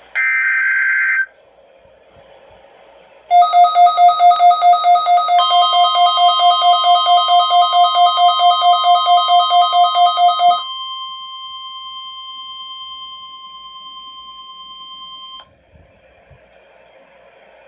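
NOAA Weather Radio test alert: a one-second burst of SAME digital header tones, then about three seconds in a weather radio receiver starts a rapid alarm beeping, about five beeps a second. Under it the steady 1050 Hz NWR warning alarm tone comes on about five seconds in. The beeping stops near ten and a half seconds and the warning tone cuts off suddenly about five seconds later, leaving radio hiss.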